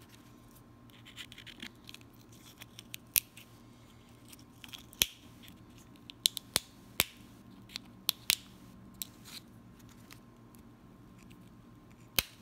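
Westcott scissors snipping around the thin edge of a small Akoya oyster shell: about ten sharp snips at uneven intervals, with fainter scratching of the blades on the shell between them.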